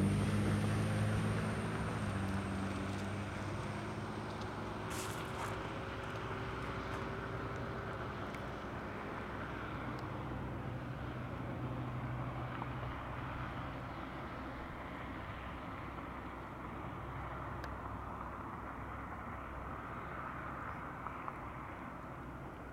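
Freight train of oil tank cars rolling away on the rails: a steady rumble of wheels on track with a low drone that fades out about halfway, the whole sound slowly getting fainter as the train recedes.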